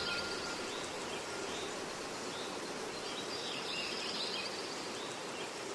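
Faint steady background hiss of room ambience, with a few faint bird chirps scattered through it.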